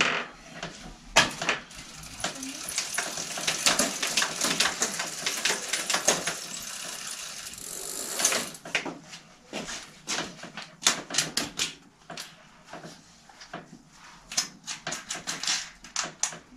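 Bicycle parts clattering and clinking as someone rummages through a workshop's parts stock. A dense rattle of small metallic clicks runs for the first several seconds, then gives way to scattered separate knocks and clicks.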